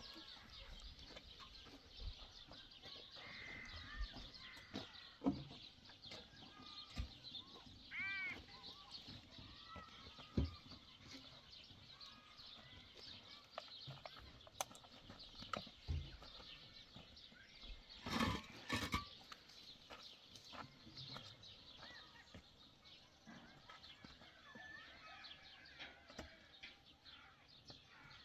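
Birds chirping steadily in the background, with one short animal call about eight seconds in, scattered light knocks, and a brief louder noise about eighteen seconds in.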